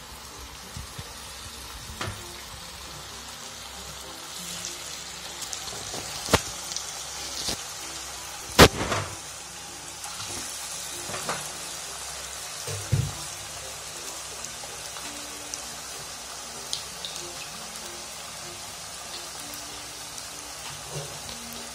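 Vegetable Manchurian balls deep-frying in hot oil in a kadhai: a steady sizzle as the raw dough balls cook. A few sharp knocks cut through it, the loudest about eight and a half seconds in.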